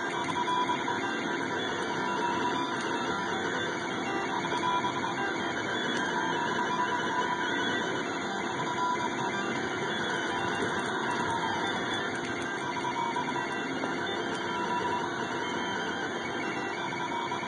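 SeeMeCNC Orion delta 3D printer running a print, its stepper motors whining in tones that shift as the head moves, over a steady even noise.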